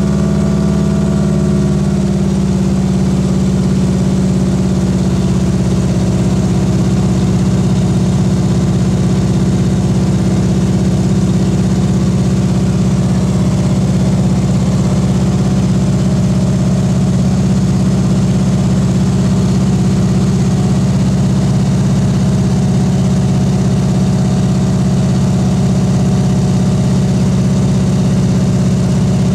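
Floatplane's piston engine and propeller heard from inside the cabin, a loud steady drone as the plane climbs after takeoff from the water. Some of its higher tones drop away about two seconds in, and it then holds steady.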